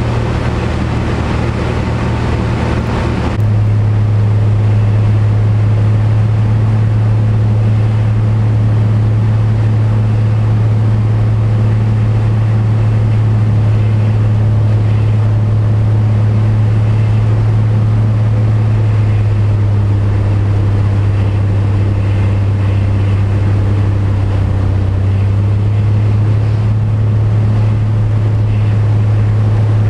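Single-engine propeller light aircraft's engine and propeller droning steadily, heard inside the cockpit as a loud, low hum. About three seconds in the drone shifts abruptly to a louder, steadier hum.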